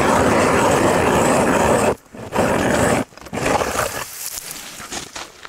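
Ice auger boring a hole through thick lake ice, about 80 cm: a loud, grainy crunching and scraping as the blades cut. It stops briefly twice, and the last stretch is weaker and fades out.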